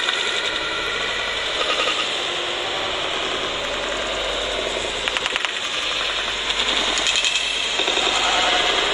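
Arena crowd noise during a badminton rally, with stretches of rapid rattling clapping, strongest around two seconds in and again in the second half.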